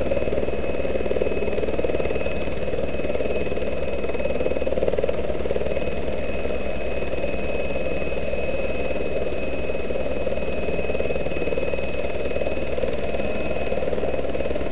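Turbine helicopter idling on the ground with its main rotor turning: a steady turbine whine over a fast, even chop of the rotor blades.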